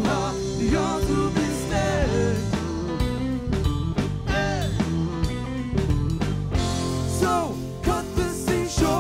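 Live rock band playing: electric guitar, bass guitar and drum kit, with a wavering lead melody of sliding, bending notes on top.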